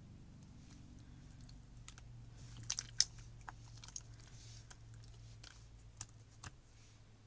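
Slime being squished and poked by hand, giving irregular small clicks and crackly pops, the loudest about three seconds in, over a faint steady low hum.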